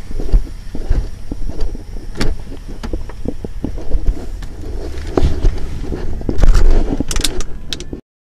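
Handling noise and wind rumble on a phone's microphone as a person walks to a car and climbs into the driver's seat, with scattered knocks, scrapes and clicks. The loudest clatter comes about six and a half seconds in, and the sound cuts off suddenly about eight seconds in.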